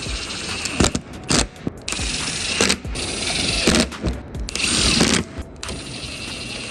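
Cordless power tool running in about five short bursts, each under a second, driving bolts or screws to fasten a front lip to a car bumper.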